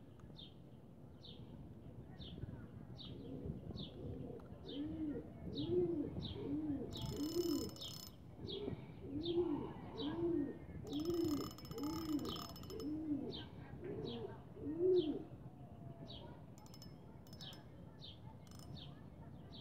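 A pigeon cooing in a long series of short low coos, over a small bird chirping steadily about twice a second. Two short bursts of rattling noise come about seven and eleven seconds in.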